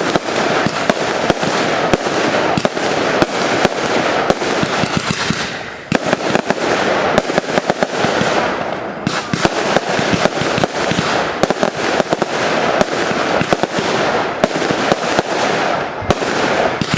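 Fireworks display in a dense, continuous barrage: many overlapping bangs with crackling between them, the volley easing only briefly a couple of times.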